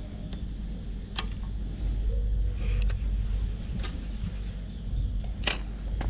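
Wind noise on the microphone, a steady low rumble, with four sharp clicks spread through; the loudest click comes about five and a half seconds in.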